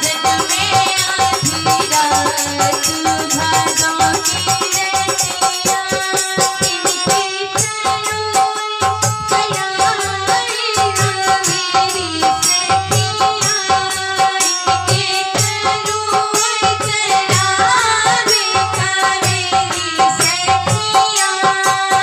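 Live devotional bhajan: a harmonium holds steady chords under a woman's singing voice, a dholak barrel drum beats a regular deep rhythm that grows stronger about a third of the way in, and a rattling hand percussion keeps time throughout.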